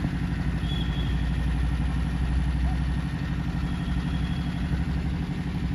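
A steady, low, evenly pulsing engine rumble, as of an engine idling.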